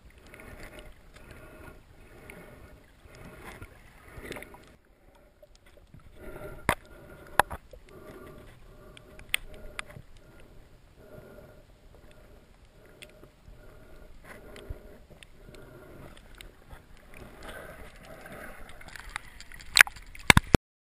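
Underwater sound heard through a waterproof camera: a muffled wash of water that swells and fades about once a second, with a few sharp clicks and knocks. Near the end come loud splashes and knocks as the camera breaks the surface.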